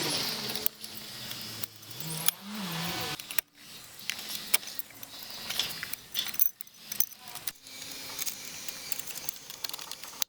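Rapid, busy metallic clinking and clattering of hand tools and engine parts being handled, with several abrupt cuts in the sound.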